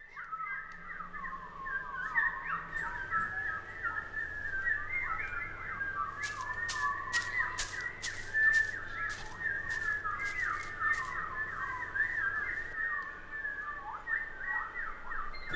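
Bird-like warbling whistles, a continuous stream of quick rising and falling chirps, with a run of sharp clicks about halfway through.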